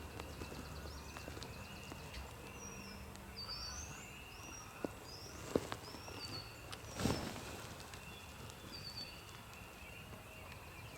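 Songbirds singing and calling over a steady outdoor background, with short sweeping phrases repeated throughout. A few sharp ticks or taps come about five and a half and seven seconds in.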